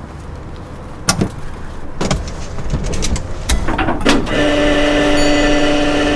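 Citroën SM door being unlatched and swung open, with clicks and knocks as a person climbs out of the car. About four seconds in, a louder, steady hum of several held tones begins and keeps going.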